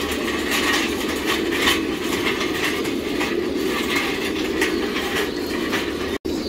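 Wheeled metal cart pushed along a concrete floor, its wheels and frame rattling with a steady rumble and irregular clicks.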